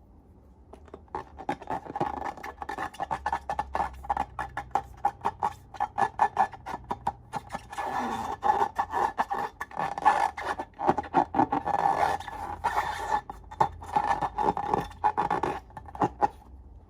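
Glossy slime being squished and stretched: a dense run of sticky clicks and small pops that starts about a second in and stops near the end.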